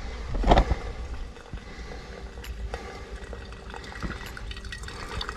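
Gasoline trickling and dripping out of a small engine's fuel system as the carburetor is taken off, with a sharp knock about half a second in.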